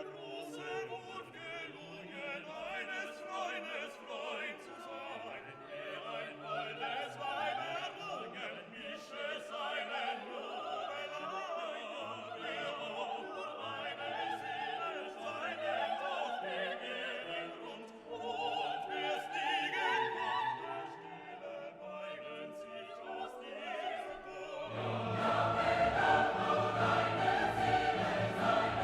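Background music: classical piece with orchestra and operatic or choral singing, growing fuller and louder near the end.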